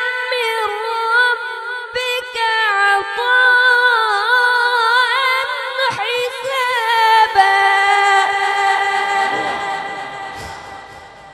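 A boy's high voice chanting Quranic recitation (tilawat) in melodic tajweed style. He holds long ornamented notes that waver up and down in pitch, then fades out over the last few seconds.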